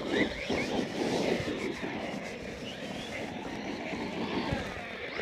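MJX Hyper Go 10208 V2 RC truck driving on a dirt track: the electric motor's whine mixed with tyre and dirt noise.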